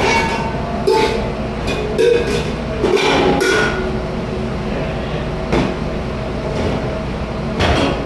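Dishes and metal kitchenware clattering and clanking, a string of knocks that ring briefly, over a steady mechanical rumble.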